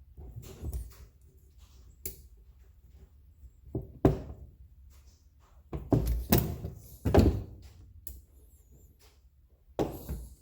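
Tools and parts of a nail gun handled on a workbench while its cap bolts are put in and tightened: a string of irregular clunks and knocks, the loudest cluster about six to seven seconds in.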